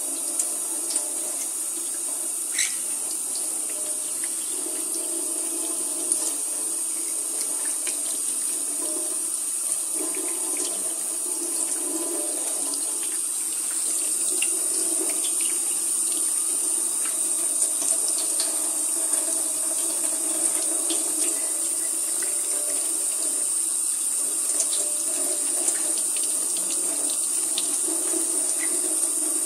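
Kitchen tap running in a steady stream into a stainless steel sink, splashing over a maroon-bellied conure bathing under it in a hand, with scattered small splashes and drips. A little louder from about halfway through.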